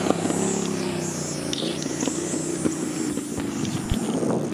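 A speeding vehicle passing by on the road, its engine note falling in pitch and fading over the first second, then steady traffic noise.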